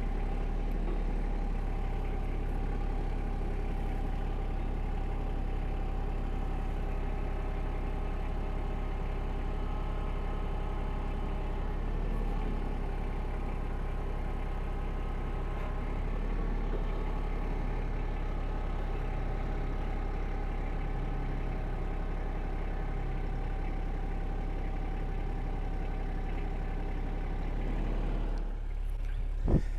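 Eastonmade 22-28 log splitter's engine running steadily at idle. A sharp clank comes right at the end.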